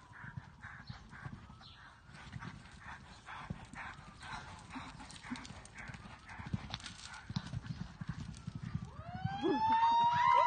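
A ridden horse cantering on arena sand, its hooves landing in a steady rhythm of soft thuds. Near the end a loud, long call rises and then falls in pitch.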